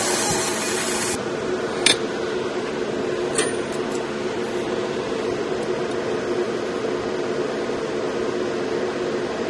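Laser marking machine engraving a metal dog tag with a loud, even hiss that cuts off suddenly about a second in. The machine's steady fan hum carries on, with two sharp clicks shortly after the engraving stops.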